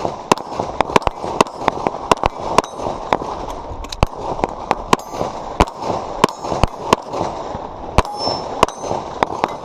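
Pistol shots fired in quick strings, about two to three a second, some sharp and loud and others fainter.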